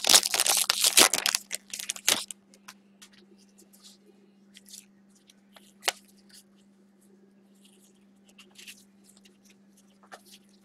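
Trading-card pack wrapper being torn open and crinkled, loud for about two seconds, then faint scattered rustles and clicks as the cards are handled, over a faint steady hum.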